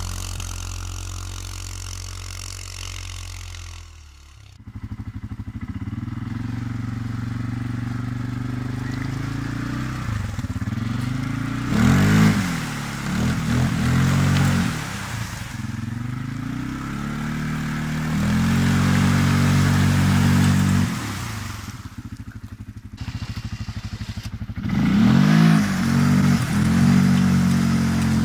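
CFMoto CF850 quad's V-twin engine running and revving, with the revs rising and falling sharply several times as it pushes through water, and water splashing around the wheels. The engine sound dips briefly about four seconds in.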